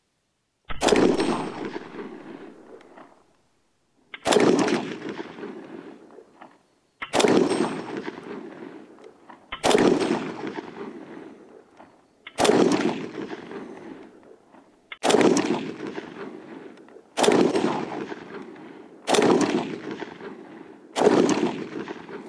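Ruger Mini 14 Ranch Rifle firing .223/5.56 rounds semi-automatically in slow, aimed shots: nine sharp reports about two to three seconds apart, each trailing off over a second or two.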